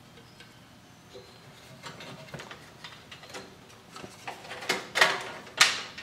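Small clicks and rustling from handling a 7-in-1 card reader, then two louder scrapes in quick succession near the end as the reader and its drive-bay bracket are pushed into the PC case's front bay.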